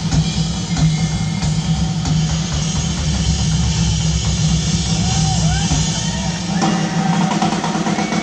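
Live rock band playing, with the drum kit to the fore. Short bent notes sound a little past the middle, and held notes come in for the last couple of seconds.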